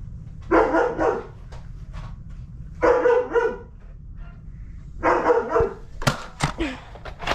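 A dog barking in three short bouts about two seconds apart, followed near the end by several sharp clicks.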